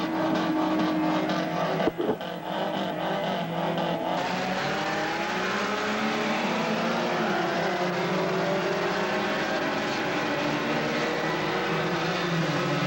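A pack of saloon racing cars, among them a Ford Capri and a Ford Escort, running at racing speed, with several engine notes overlapping and sliding up and down in pitch. A single steady engine note breaks off abruptly about two seconds in.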